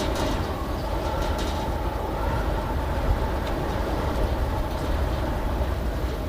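A moving vehicle running with a steady low rumble, with a few faint, brief high-pitched scrapes on top.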